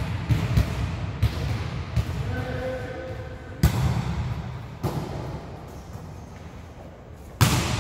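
Volleyballs being struck and bouncing in an indoor gym: a quick run of sharp thuds at the start, then single thuds at intervals, the loudest about three and a half seconds in and near the end, over a steady hall background.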